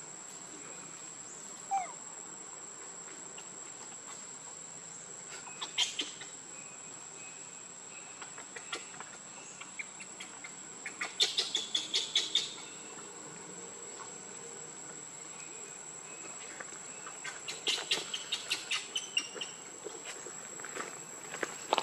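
Insects calling: a steady high-pitched drone, broken by three bursts of rapid clicks, about six, eleven and eighteen seconds in, the middle one loudest.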